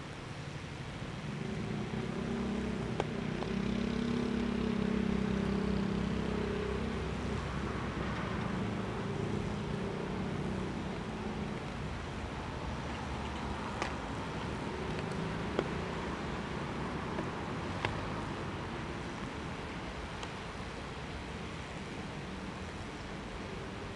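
Low engine hum of a vehicle that swells over a few seconds and slowly fades, over a steady hiss, with a few sharp ticks scattered through.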